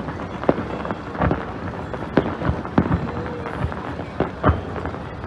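Aerial fireworks bursting, about seven booms at uneven intervals over a steady rumble.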